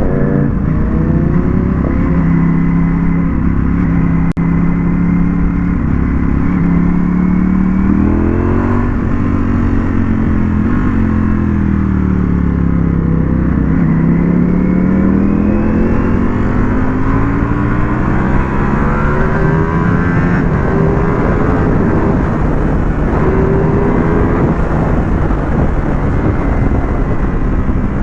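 Ducati Panigale V4S engine under way, its revs rising and falling smoothly as the bike accelerates and eases off, with wind rushing over the microphone.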